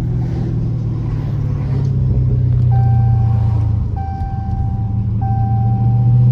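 Dodge Challenger Scat Pack's 392 Hemi V8 idling with its catalytic converters gutted, a deep steady rumble. From about three seconds in, a high electronic chime sounds in long tones repeating about once a second.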